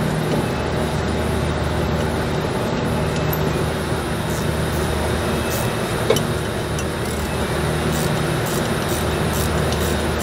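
Steady low hum and rushing noise of running air-conditioning machinery. About six seconds in comes one sharp metal click as a hand tool works the bolts on the filter drier housing cover.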